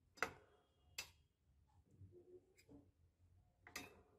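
Three light clicks of a steel spoon against a small steel bowl of batter, the first the loudest, with faint handling sounds between; otherwise near silence.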